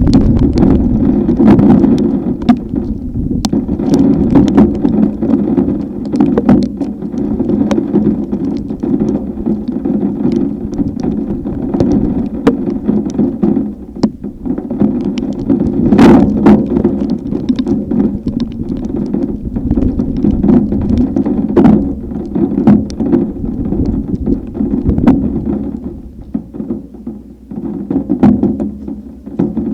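Storm wind buffeting the microphone while rain beats down, with many sharp taps of drops striking close by.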